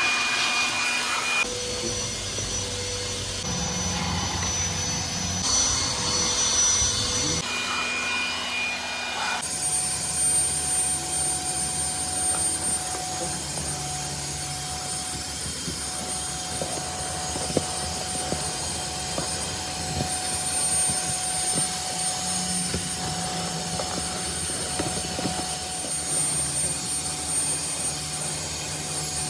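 Electric motor of car-interior cleaning equipment running steadily with a high whine, changing abruptly every couple of seconds in the first ten seconds, then one long steady stretch with a sharp click a little over halfway.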